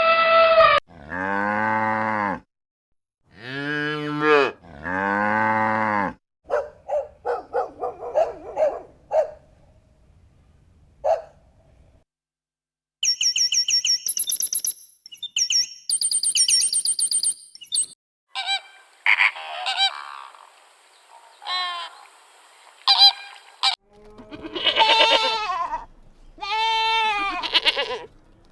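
A string of different farm animal calls one after another: two long, low calls early on, then shorter calls, then higher-pitched calls.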